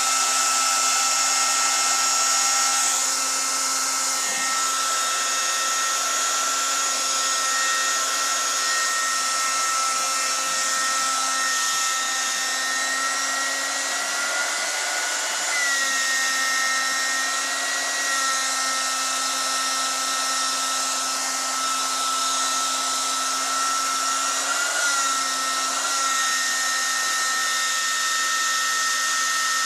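Hair dryer running steadily with a high motor whine, its pitch dipping briefly twice.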